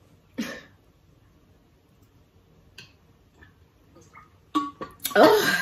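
Quiet drinking and eating at a table: a short noisy sip or gulp from a drink bottle about half a second in, then a few faint clicks of a spoon and dishes. Near the end a woman loudly exclaims "Oh" with satisfaction after the drink.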